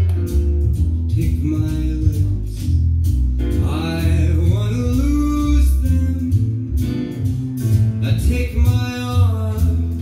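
Recorded song playing: a singer over plucked guitar and a steady, prominent bass line.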